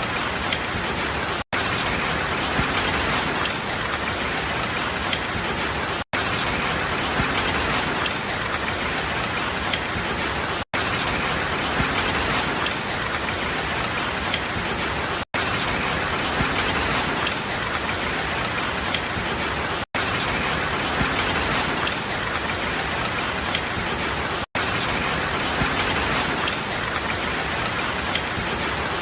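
Steady, dense rain falling, a continuous hiss of drops with scattered ticks. It cuts out to silence for an instant six times, evenly about every four and a half seconds.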